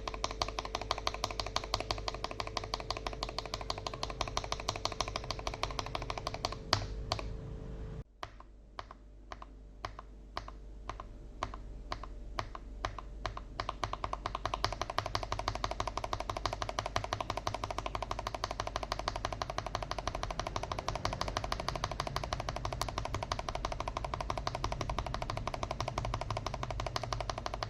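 Stock, unlubed linear mechanical key switches fitted with keycaps, pressed rapidly in a fast run of clacks. About eight seconds in, the sound changes abruptly to slower single presses, then rapid pressing resumes.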